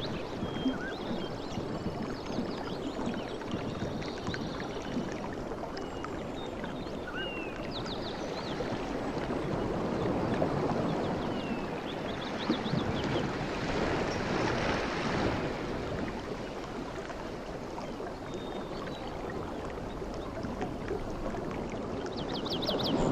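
Sea waves washing in with a steady rush that swells about halfway through and again at the end, with birds chirping and trilling over it.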